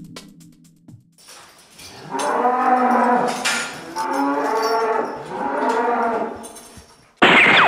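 A cow mooing: three long, drawn-out moos. Near the end they give way to a sudden loud sound with a falling pitch.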